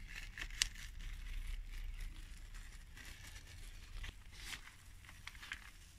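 Glossy paper crinkling and rustling in a hand as it grips an eel's skin and peels it down off the hanging eel, with faint soft tearing of the skin coming away. The sound comes in scattered short crackles with a small sharp click near the start.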